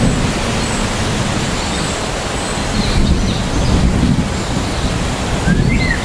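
Heavy rain falling steadily, an even hiss over a deep low rumble. A few faint short chirps come near the end.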